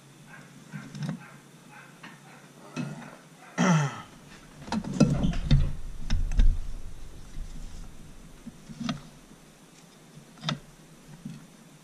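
Metal engine parts clicking and knocking as a piston and connecting rod are worked into a cylinder of a two-stroke outboard powerhead. About three and a half seconds in there is a short loud sound falling in pitch, then a second and a half or two of heavier thumps and rattles. A few lone clicks follow.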